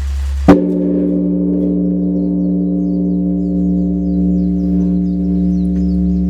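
Large Buddhist temple bell struck once, about half a second in, then ringing on with several steady tones that slowly pulse.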